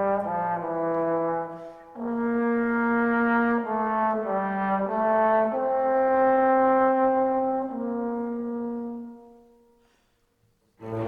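Background music: a slow brass melody of long held notes, fading out about three-quarters of the way through, with a brief silence before music starts again near the end.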